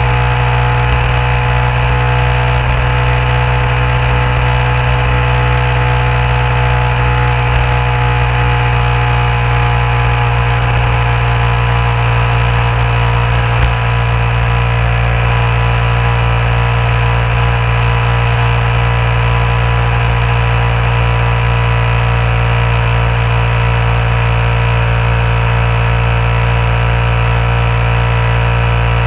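Vehicle engine running steadily at highway cruising speed, a constant low hum with road and wind noise and no change in pace.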